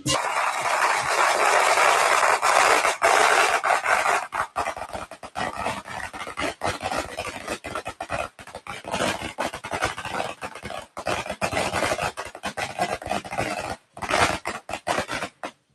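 A string of firecrackers going off in a rapid, continuous crackle of sharp bangs, densest for the first few seconds, then thinning into separate cracks before cutting off suddenly near the end.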